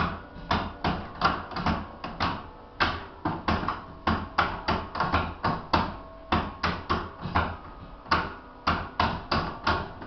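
Wooden levers of a church chime stand pushed down one after another, each stroke a sharp clack of the lever and its cable, about three a second, while the tower bells they pull ring faintly behind.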